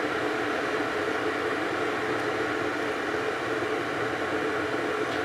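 Glass electric kettle, filled close to its 1.8 L max, heating water nearly to the boil: a steady rushing hiss.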